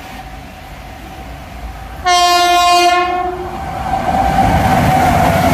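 Indian Railways electric locomotive sounding its horn in one loud blast of about a second and a half, a couple of seconds in, over the low rumble of the approaching train. After the horn, the rumble of the train on the track grows steadily louder as it nears.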